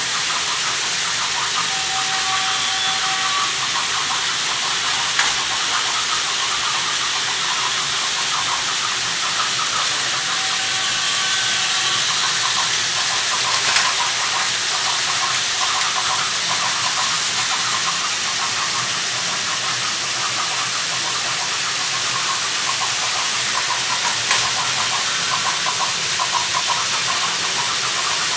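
Battery-powered Plarail toy trains running on plastic track: a steady whirring and fine rapid rattling with a hiss above it, broken by a few small clicks and a few faint short tones.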